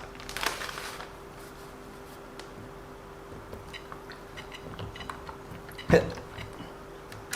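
Small clicks and taps of RC car parts being handled and fitted, with one sharper knock about six seconds in, over a faint steady hum.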